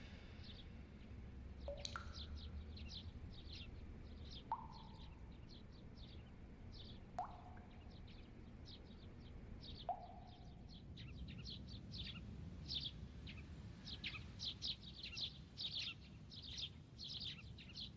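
Faint chirping of small birds in quick, repeated chirps that grow busier in the second half. In the first half, four water drops plink into a water tank, each a short dropping tone, about three seconds apart.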